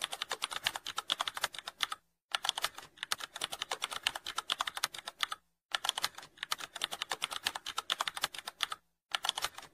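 Computer keyboard typing sound effect: fast, even key clicks, broken by brief pauses about two, five and a half, and nine seconds in.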